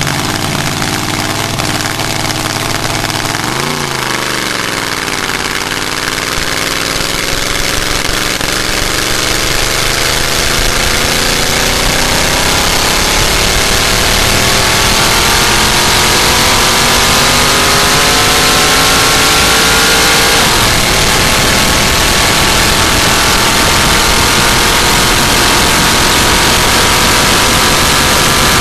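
Land-speed racer's engine accelerating hard at full throttle. It gives a quick rev up and down about four seconds in, then climbs steadily in pitch through one gear, drops sharply on an upshift about twenty seconds in, and climbs again, with wind rush growing louder as speed builds.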